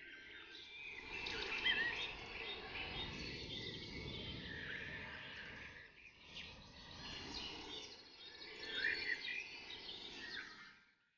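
Several forest songbirds chirping and calling at once, short whistled notes and trills, over a steady low background rumble. The sound drops away almost to silence right at the end.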